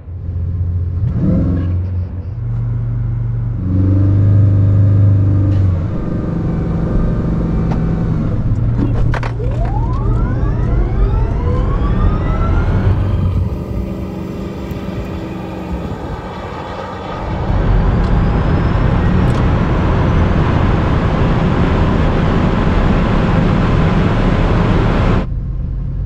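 Bugatti Chiron Super Sport's quad-turbo W16 engine and the Rimac Nevera at a drag-race start line: engine note held at raised revs, stepping up and down. About ten seconds in, a rising whine as a car launches hard. From about seventeen seconds in, loud steady engine and rushing wind noise at speed.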